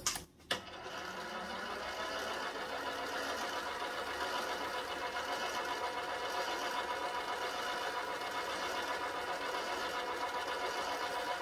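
Small benchtop metal lathe starting about half a second in, then running steadily with a whine of several tones. A Scotch-Brite pad is held against the spinning part to deburr it.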